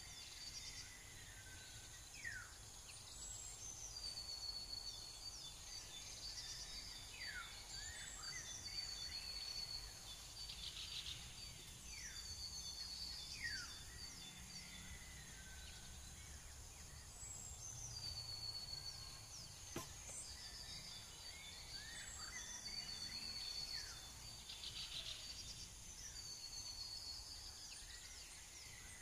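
Outdoor ambience of several birds calling: repeated high trills and short falling whistles, over a steady high-pitched hum. One sharp click about two-thirds of the way through.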